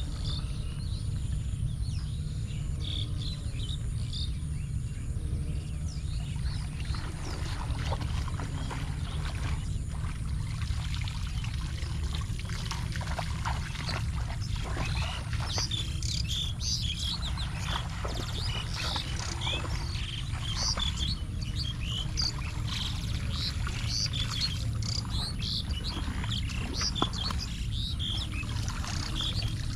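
Monsoon rain ambience on a walk: a steady low rumble with many short high chirps and ticks scattered through it, busier in the second half.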